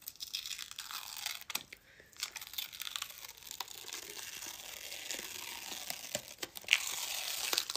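Adhesive crackling and tearing as a heavily glued makeup piece is peeled off the skin, with many small clicks. It gets a little louder near the end.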